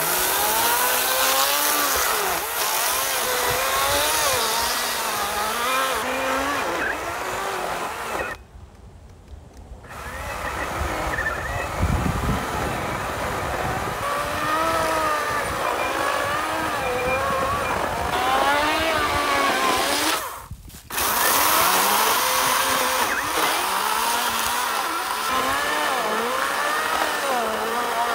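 Wild Badger Power 40-volt battery chainsaw cutting through a large pine log, its motor pitch wavering as the chain bogs and frees in the wood. It stops for about a second and a half about eight seconds in, and again for a moment about twenty seconds in.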